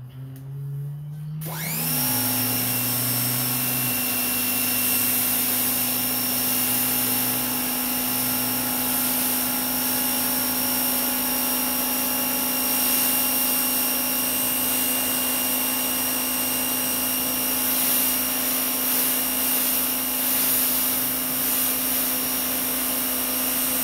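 CAT 1800 PSI, 2.0 GPM electric pressure washer by Active running under load with the trigger held, a steady motor-and-pump hum under the hiss of the spray on concrete. It starts about a second and a half in and cuts off abruptly at the very end when the trigger is let go.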